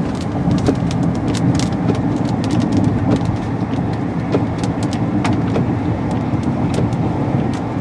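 Car cabin noise while driving on a wet road: a steady low rumble of tyres and engine, with scattered sharp ticks of raindrops hitting the windshield and roof.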